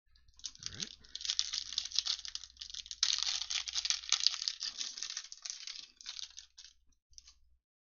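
Foil wrapper of a Score football card pack crinkling and crackling as it is handled and torn open: a dense run of small crackles, loudest in the middle, trailing off near the end with one last short crinkle.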